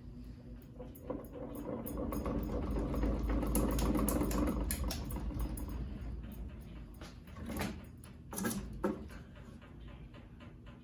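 A small electric motor whirring, swelling up and then dying away, with clicks and rattles, followed by a few sharp knocks near the end.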